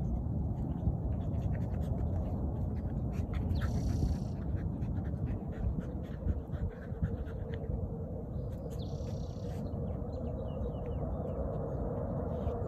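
An Australian Shepherd and a Miniature Pinscher play-wrestling, with intermittent dog vocal sounds and scuffling.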